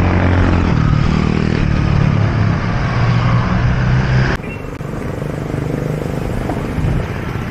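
Road traffic passing close: the engine drone of a heavy truck and other motor vehicles over a steady rush of road noise. A little over four seconds in it cuts off abruptly to quieter street traffic.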